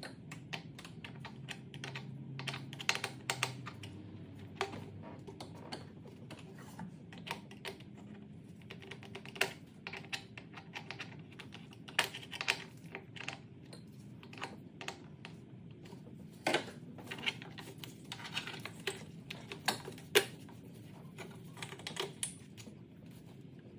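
Irregular light clicks and taps of a screwdriver and engine parts being handled while refitting the air intake in a car's engine bay.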